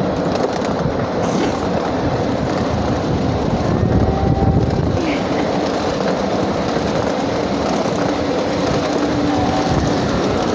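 Ride-on miniature railway train running along its track: the steady rumble of the cars' wheels on the rails, a little louder about four seconds in.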